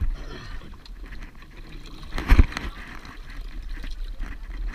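Wind rumbling on the microphone of a camera fixed to a dive boat's rail, with water washing against the boat; a louder rush of noise comes about two seconds in.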